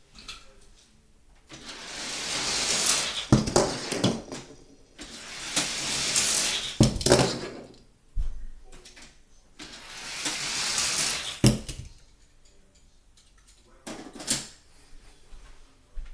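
Hot Wheels die-cast cars running down a plastic track, three times: each run is a rising rolling rush that ends in sharp clattering as the car jumps and lands. A few lighter clacks follow near the end.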